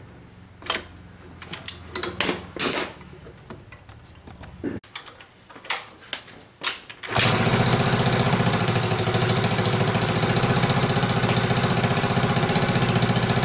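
A few sharp metal clinks and knocks of tools. About seven seconds in, the Yamaha Mio's single-cylinder four-stroke engine starts abruptly and runs steadily, showing that the ignition works again with the original pulser coil refitted.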